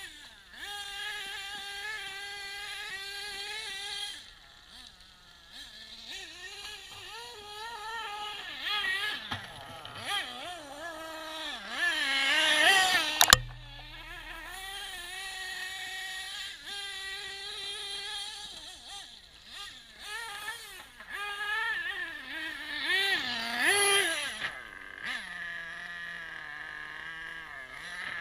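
Losi 8ight-T nitro truggy's small nitro engine revving up and easing off again and again, a high whine whose pitch rises and falls as the truck works up a gravel and dirt hill. A sharp knock about thirteen seconds in, at the loudest stretch of revving.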